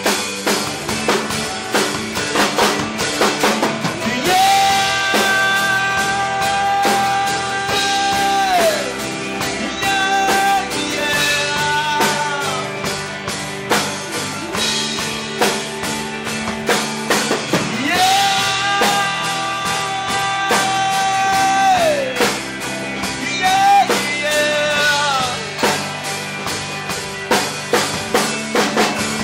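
Live gospel rock band playing an instrumental break: drum kit and band with a lead melody of long held notes that slide down at their ends, twice.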